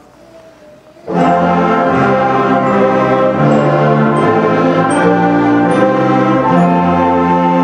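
School concert band of brass and woodwinds playing a chorale in slow, sustained chords, coming in loudly about a second in after a quiet moment.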